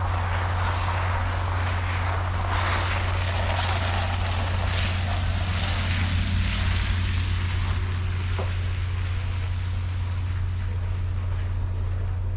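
Passenger train's diesel engine running with a steady low hum, with wind noise on the microphone.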